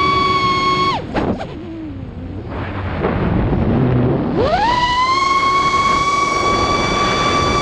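Brushless motors spinning Race Kraft 5051 five-inch props on an FPV racing quadcopter, a steady high whine at high throttle. About a second in the throttle is cut and the whine drops away to a low whoosh of air past the frame; about four seconds in it spools back up in a rising whine to the same steady pitch.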